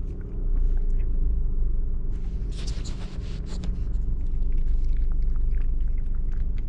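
Steady low car-cabin rumble, with a Bichon Frise and Toy Poodle cross puppy lapping water from a plastic cup in small, irregular wet clicks. There is a brief rustle about halfway through.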